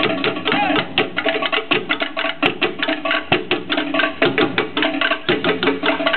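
Live Tahitian dance music: fast, even drum strikes several times a second over plucked strings.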